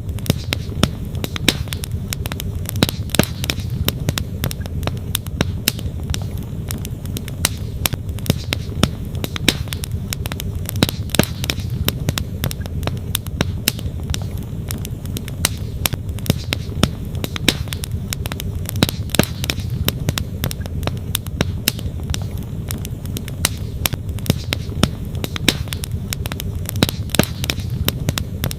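Wood fire crackling with frequent sharp, irregular pops, over the steady low rush of a flowing stream.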